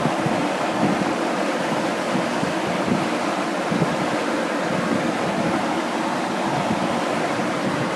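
Steady droning rumble of a moving car from worn wheel bearings, mixed with road and wind noise.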